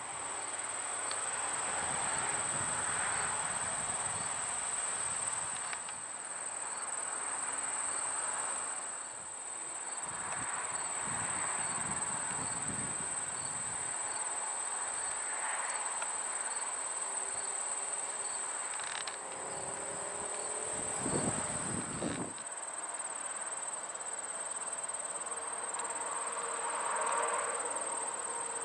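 Steady, high-pitched insect chorus, a continuous shrill trill, with a brief louder low rumble about 21 seconds in.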